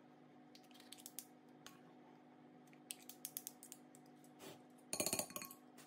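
Faint clicks and scrapes of two metal spoons scooping thick muffin batter and dropping it into paper cups, with a quick flurry of clicks about five seconds in. A faint steady hum runs underneath.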